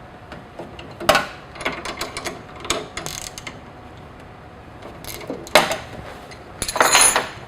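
A pair of 13 mm wrenches working on the nuts and bolts of the bus bar connections as they are loosened. Scattered metallic clicks and clinks, busiest near the end.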